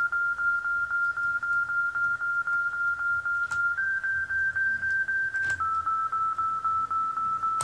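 Electronic synth tone: a single thin, beep-like note pulsing about five times a second. Its pitch steps up a little about halfway through, then drops a little below where it began.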